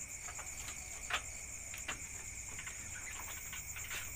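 Night insects, crickets, chirring steadily in a high continuous drone, with scattered light clicks and taps over it, the sharpest about a second in.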